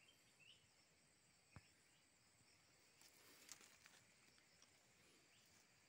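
Near silence: faint forest ambience with a steady high hiss, a single soft click about one and a half seconds in and a few light rustles around three seconds in.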